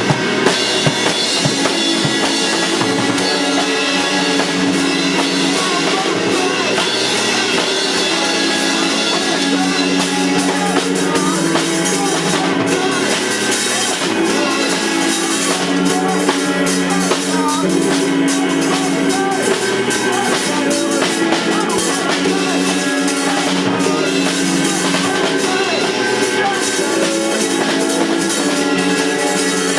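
Live rock band playing an improvised song, with the drum kit prominent.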